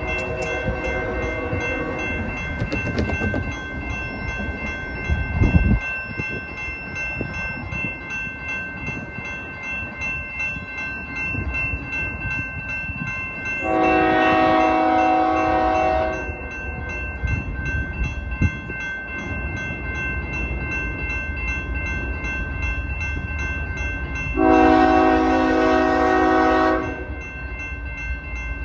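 A railroad crossing bell rings steadily while an approaching CSX freight locomotive's air horn sounds two long chord blasts, about 14 s and 25 s in, its warning for the grade crossing. A low rumble of the oncoming train builds under it.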